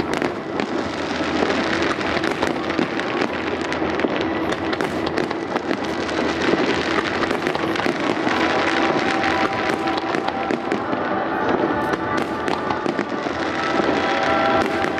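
A dense barrage of aerial firework shells bursting, with a continuous rapid crackle of many sharp cracks and bangs. Show music plays underneath.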